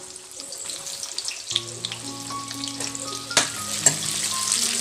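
Onion slices and dried red chillies frying in hot oil in a kadai, a steady sizzle that grows louder. A metal ladle stirs them, knocking the pan twice in the second half.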